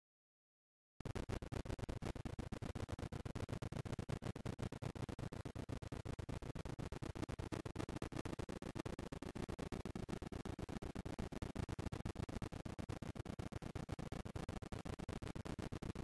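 Camera audio slowed down many times over, heard as a fast, stuttering crackle of clicks over a low rumble. It starts abruptly about a second in, out of silence.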